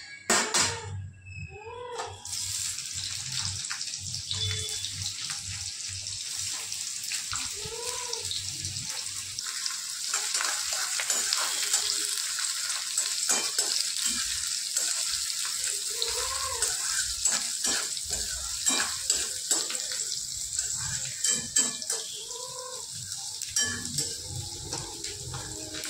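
Chopped onions sizzling steadily in hot oil in a kadhai, starting about two seconds in, with a slotted metal spoon scraping and tapping the pan as they are stirred. A cat meows several times.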